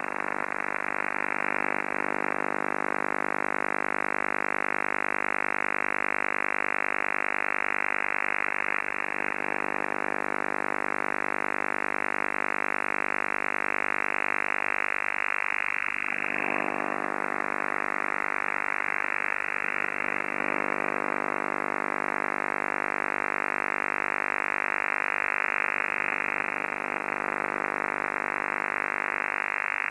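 Unidentified buzzing transmission received on an 11-metre (27 MHz CB) band radio: a steady, harsh buzz of many stacked tones, with nothing above about 3 kHz. Slow whooshing sweeps pass through it a few times.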